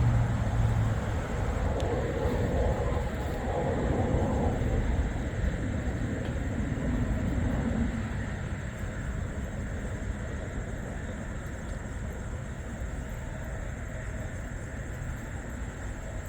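Steady low rumble of passing motor traffic. In the first half one vehicle goes by, its pitch falling, and it fades by about eight seconds in.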